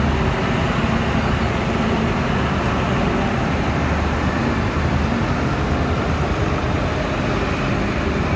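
Steady engine and road noise of trucks and motorcycles passing slowly close by in a procession.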